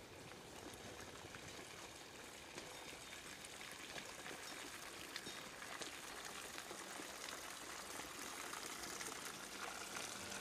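Running water: a steady stream-like rushing and trickling that slowly grows louder. A low sustained musical tone fades in near the end.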